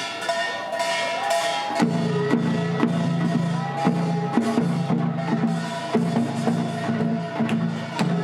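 Korean traditional processional music for the bride's entrance. A held melody line bends in pitch, a low drone comes in about two seconds in, and drum strokes fall at uneven intervals.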